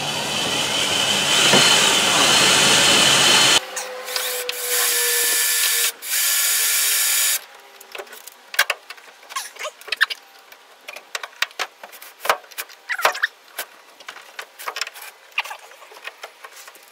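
Electric drill running in bursts while it drills out aluminium pop rivets: one long run of about three and a half seconds, then two shorter bursts. After that come small irregular metal clicks and scrapes of a hand screwdriver working screws.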